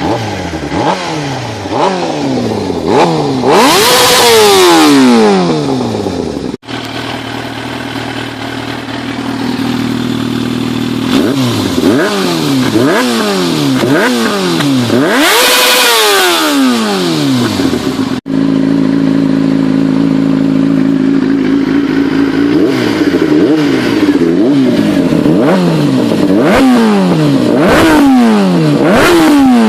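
Yamaha YZF-R6 600 cc inline-four motorcycle engine being revved with repeated quick throttle blips, each rev rising and falling, with two higher revs about 4 and 15 seconds in and short spells of steady idle between. The sound cuts abruptly twice, at about 6.5 and 18 seconds, as separate takes follow one another.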